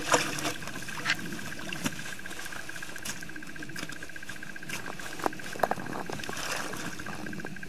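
A wooden pole jabbed into a water-filled hole in lake ice, knocking against floating ice chunks with a few sharp clunks amid light sloshing of slush and water.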